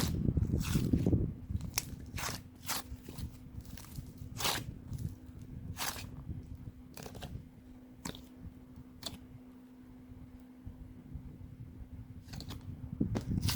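Clay being squeezed and worked by hand, giving irregular crunchy crackles and pops, busiest in the first second and near the end.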